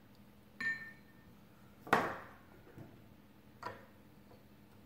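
A metal spoon clinking against a plastic tub and dish as baking soda is scooped: three separate short clinks, the middle one, about two seconds in, the loudest and ringing briefly.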